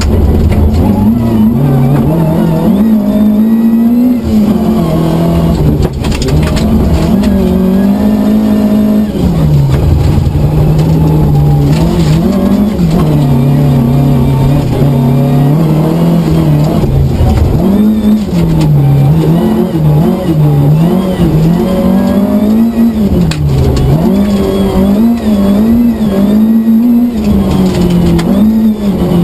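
Rally car engine heard from inside the cabin, driven hard: its pitch climbs and drops again and again as the driver works through the gears and lifts for bends.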